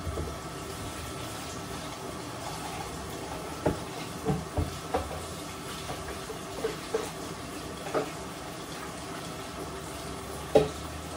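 Kitchen sounds: a steady hiss with a handful of short knocks and clinks scattered through it.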